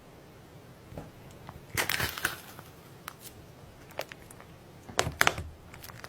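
Slime being squeezed and pressed by hand, giving short clusters of crackly pops: a bunch about two seconds in, a single pop near four seconds, and a louder bunch around five seconds.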